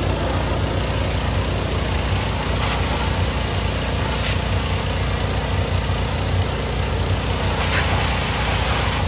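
Hot water pressure washer running: its engine runs at a steady speed under a continuous hiss of water spray. A few faint clicks come through along the way.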